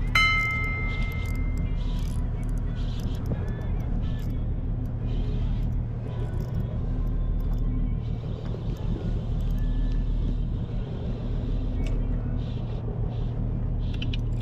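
An engine running steadily with a low hum. A short ringing tone sounds right at the start and fades.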